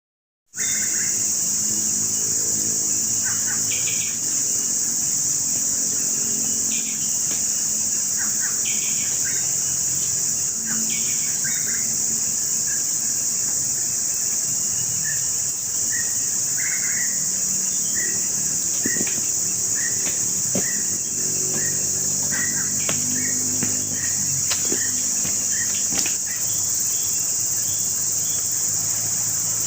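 Tropical forest ambience: a loud, steady, high-pitched insect drone, with birds calling over it in short chirps, about one a second later on.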